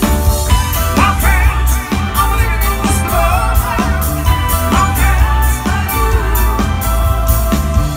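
A live band playing loud amplified music through a PA: heavy bass, drums keeping a steady beat, and a singer's voice gliding over it, heard from within the crowd.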